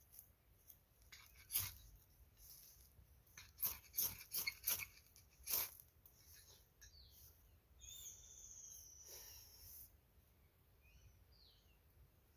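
A knife blade scraping a dry stick: several short, sharp scrapes in the first half, some in quick succession. A bird calls with whistled, falling notes about eight seconds in.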